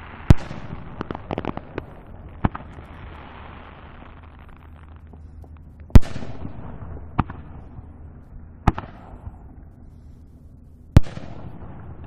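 Aerial firework shells bursting, heard from about a kilometre away: a string of sharp bangs one to three seconds apart, three of them much louder than the rest, each trailing off, with a quick run of crackling about a second in.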